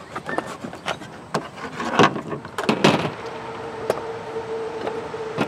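Hard plastic leaf-blower housing being pried apart from its engine by hand: a series of irregular clicks, knocks and scrapes of plastic parts, with a faint steady hum coming in about halfway.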